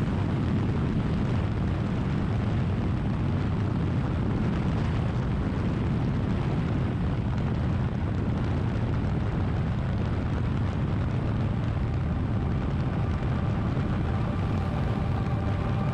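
Triumph Bonneville's parallel-twin engine running steadily at cruising speed, heard from the rider's position with a constant rush of wind and road noise.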